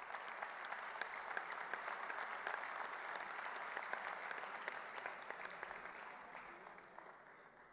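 Audience applauding: many hands clapping, slowly dying away over the last couple of seconds.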